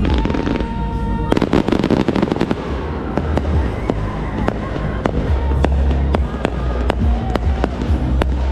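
Aerial fireworks exploding over music: a rapid cluster of bangs about a second in, then single reports about twice a second, with a low rumble underneath.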